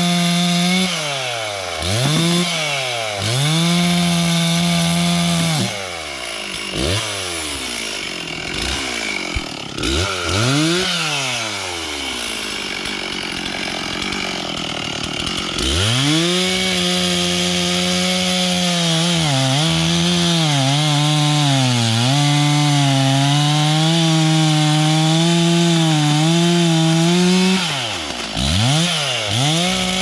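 Chainsaw revved and let back to idle several times, then held at full throttle for about ten seconds with small dips in pitch as it cuts into hard maple log wood. It drops back to idle and blips again near the end.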